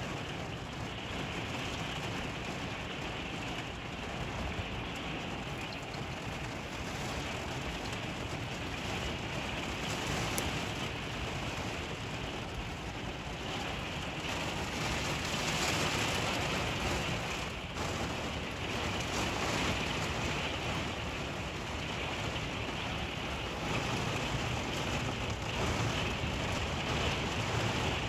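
Heavy rain pouring down, heard from inside an RV. The rain is steady and dense, and it grows a little heavier about halfway through.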